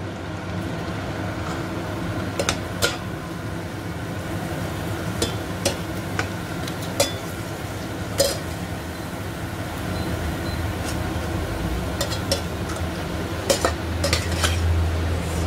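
Kerupuk (Indonesian crackers) deep-frying in hot oil in a stainless steel pot, the oil sizzling steadily. A metal fork and a slotted spatula stir the crackers, clinking sharply against the pot now and then.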